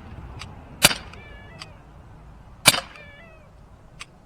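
Two sharp shots from a CO2 BB air pistol, about two seconds apart. After each shot comes a short, high, wavering animal call, with faint ticks in between.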